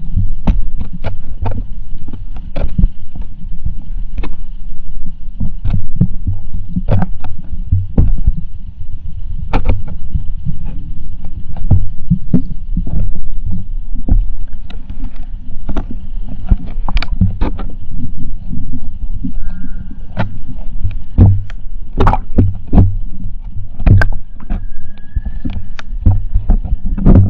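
Underwater sound picked up by a GoPro in its waterproof housing: a muffled low rumble with frequent sharp clicks and knocks.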